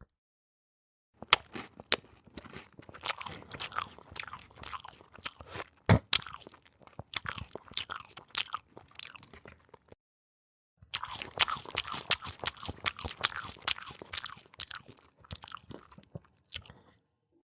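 A person chewing crunchy food close to the microphone: a dense, irregular run of crunches and bites. It comes in two stretches of several seconds, broken by a second of silence about ten seconds in.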